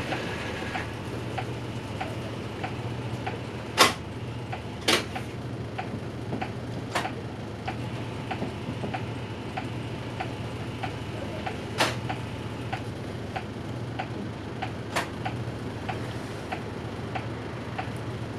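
City bus's turn-signal indicator ticking steadily, about one and a half clicks a second, over the bus's engine idling at a standstill; a few louder sharp clicks come now and then.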